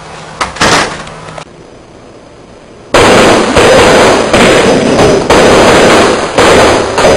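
A string of leftover Fourth of July firecrackers going off in a rapid, continuous run of loud bangs, starting suddenly about three seconds in, after a couple of brief pops in the first second.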